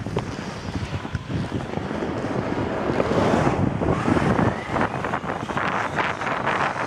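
Wind buffeting the microphone and the rushing hiss of a snow tube sliding fast over groomed snow, growing louder about three seconds in.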